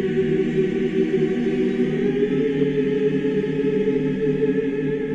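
A choir singing one long, steady held chord in a slow song.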